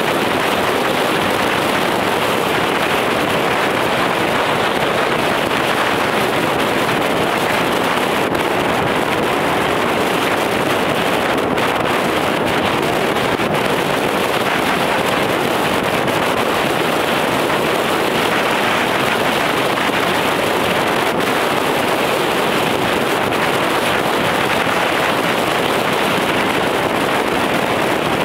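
Steady road and wind noise from inside a moving vehicle cruising along a highway, with no engine changes or distinct events.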